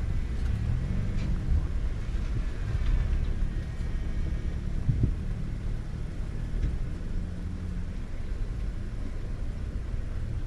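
Engine of an off-road 4x4 truck running at low revs, a steady low rumble, with a short thump about halfway through.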